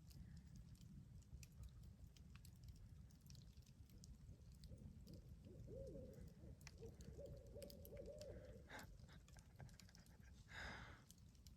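Barred owl hooting faintly: a run of hoots with bending pitch lasting about four seconds, followed near the end by a short hissing rush.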